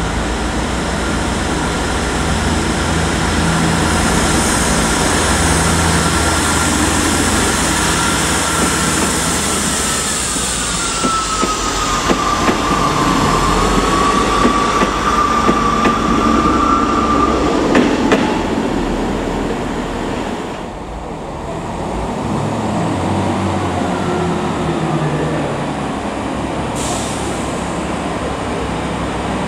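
A Class 159 diesel multiple unit pulls out and passes close by, its diesel engines working under power over a steady rumble from the rails. A high whine rises and dips in pitch through the middle of the pass, then the sound eases off as the train draws away.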